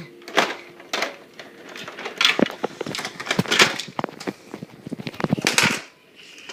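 Toy camper pieces being handled, with irregular clicks and knocks of toy parts and doors being moved.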